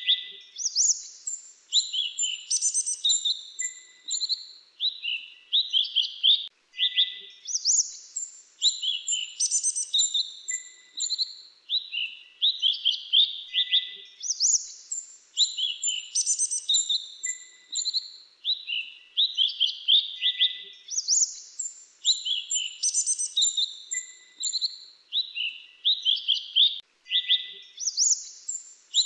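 Grey-chinned minivet song: bouts of rapid, high chirps and trills, each phrase repeating about every six and a half seconds.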